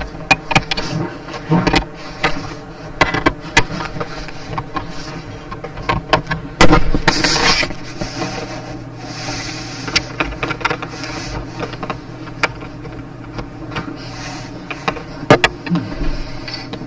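Irregular clicks and knocks of objects being handled close to a microphone, with a louder scraping rush about seven seconds in, over a steady low hum.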